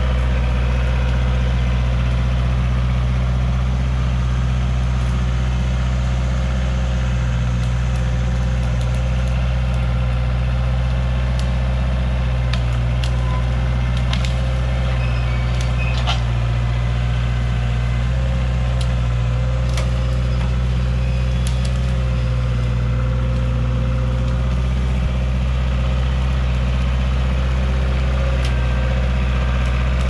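Large engine idling steadily with an even low hum, and a few short sharp clicks and cracks over it.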